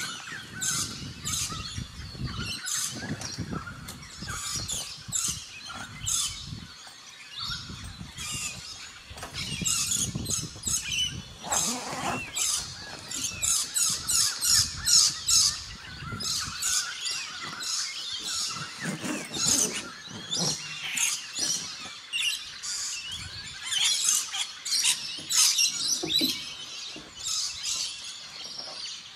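Birds chirping and calling over and over, with low rustling from camper-trailer tent canvas being handled and pulled out, strongest in the first third.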